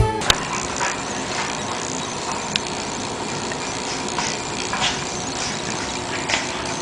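Steady hiss of home-video background noise, with a few faint light taps; background music cuts off right at the start.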